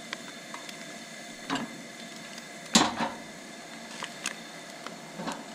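Steady hiss of a Coleman propane camp stove burner with bacon and an egg sizzling in a frying pan. A few light metal clicks and knocks of cooking utensils come through it; the loudest, about halfway through, is a metal spatula being set down on the stove's grate.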